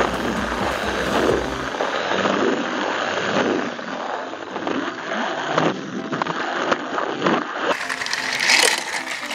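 Battery-powered TrackMaster toy train running along plastic track, its motor whirring and its wheels rattling and scraping, heard from a camera riding on the train. The sound loses its low rumble about two seconds in and changes again near the end.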